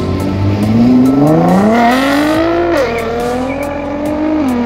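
Nissan GT-R's twin-turbo V6 accelerating hard away from a standstill, its note rising steadily, then dropping sharply at an upshift about three seconds in and climbing again before a second upshift near the end.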